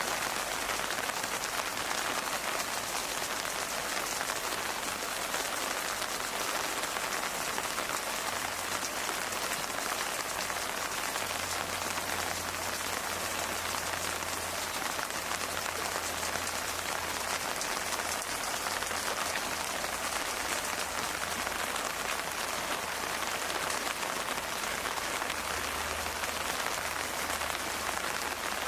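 Steady rain falling: an even, unbroken hiss of drops on a surface, with no change in strength.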